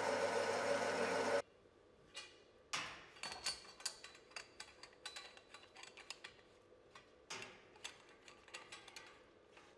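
AGRAM A10 grain mill running with a loud steady hum that cuts off abruptly about a second and a half in. After that comes a string of irregular light clicks and metallic knocks as a gloved hand handles steel pipework.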